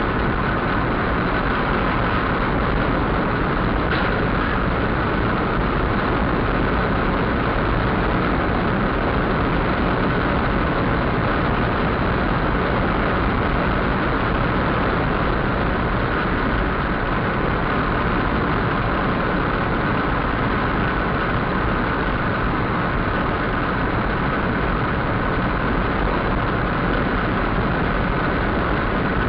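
Steady engine and tyre noise of a car driving on a highway, heard from inside the cabin through a dashcam's microphone.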